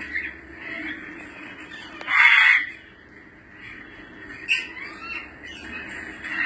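African grey parrots calling: scattered short whistles and chirps, with one harsh squawk lasting about half a second, about two seconds in, the loudest call.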